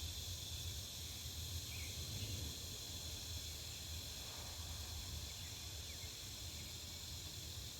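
Back-yard ambience: a steady, high-pitched insect chorus over a low, constant rumble, with a couple of faint bird chirps.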